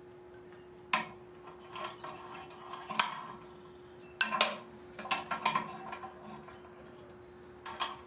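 Metal clanks and clinks from handling steel and the metal-cutting band saw setup: sharp knocks about a second in, at three seconds, just after four seconds and near the end, with lighter rattles between them, over a steady faint hum.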